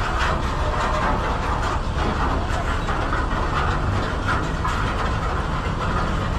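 Heavy diesel engine running steadily under load, with light metallic clanking and rattling, as a low-bed trailer is driven out from under a jacked-up crawler crane body.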